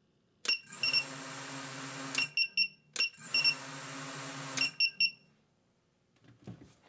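Racing quadcopter's Emax 2205 2600kv brushless motors with 5-inch props spinning at a steady idle twice, about two seconds each time, with an even whirring buzz. Short high beeps sound at the start and end of each run.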